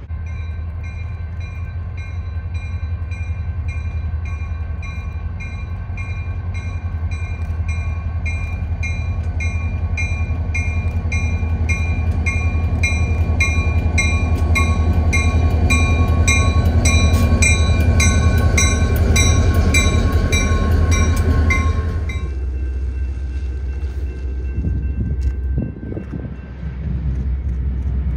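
Indiana Harbor Belt diesel locomotives rumbling past with a bell ringing in quick, regular strokes. Both swell as the engines draw level. The ringing cuts off suddenly about three-quarters of the way through, leaving the low rumble of an approaching freight train.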